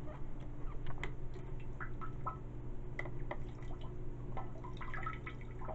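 Water dribbling from a plastic water bottle into the water of a toilet bowl: an irregular run of small drips and plinking splashes, staged to sound like someone peeing.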